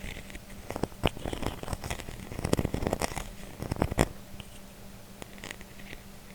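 Metal and glass lids being handled: a cluster of taps, clinks and scrapes, with sharp knocks about a second in and about four seconds in, then a few light ticks.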